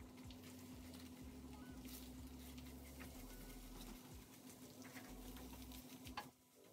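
Faint tapping and scraping of a spatula stirring scrambled eggs in a frying pan, in light irregular clicks.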